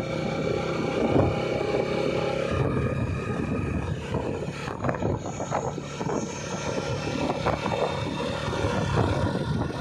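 Motorcycle engine running steadily at road speed, heard from the pillion seat, with wind and road noise over it.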